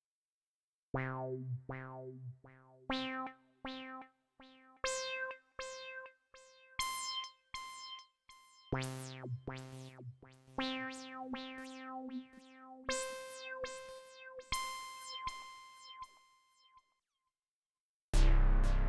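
Dave Smith Instruments Prophet 6 analog polyphonic synthesizer playing a patch with a sharp attack and quick decay, single notes played up and down the keyboard in two runs. After a short silence, a louder, different patch starts about a second before the end.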